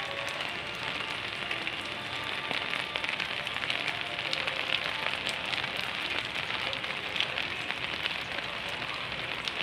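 Steady rain falling on garden foliage: an even hiss made of many small drop ticks, with no let-up.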